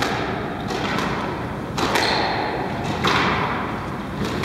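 Squash ball thuds echoing around a squash court: about three sharp knocks, roughly a second apart, each followed by a long ringing echo.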